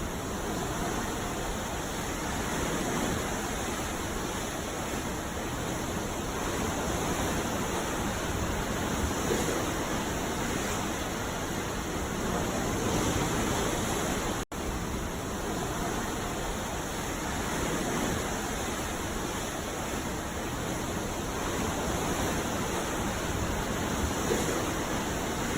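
Ocean surf: a steady rush of breaking waves with gentle swells, dropping out for an instant about halfway through.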